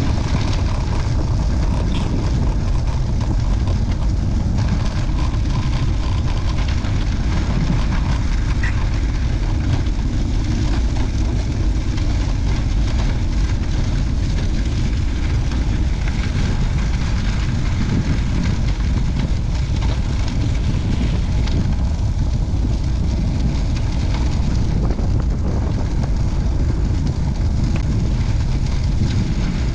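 Wind buffeting the microphone while moving: a loud, steady low rumble with a hiss above it.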